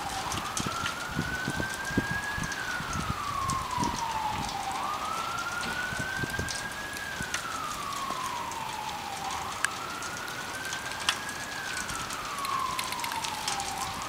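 Emergency vehicle siren wailing: a slow rise in pitch, a brief hold, then a long slow fall, repeating about every four and a half seconds, three full cycles.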